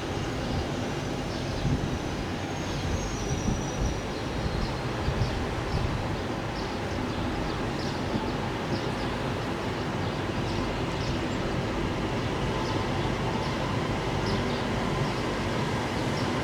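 Passenger train running past on the line: a steady rolling rumble and hiss of wheels on rail, with light clicks about once or twice a second.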